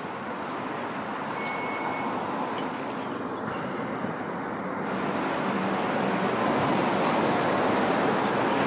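Two-car Hong Kong MTR Light Rail train approaching and pulling into the stop: the steady rolling rumble of its wheels on the rails and its running gear, growing louder as it nears.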